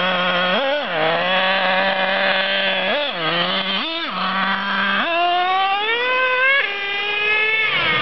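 Small gas-powered RC truck engine idling with a steady buzzing note, blipped briefly three times, then revved up in a rising whine from about five seconds in, dropping back off near the end.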